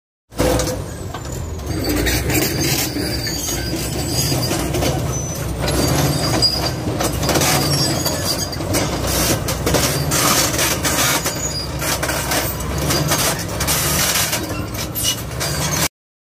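Hydraulic excavator working rock: the diesel engine runs steadily under load while the bucket scrapes and knocks against stone, with frequent sharp clanks.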